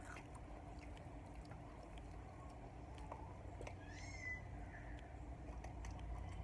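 Faint chewing and mouth clicks over a low steady hum, with one short high-pitched squeal about four seconds in.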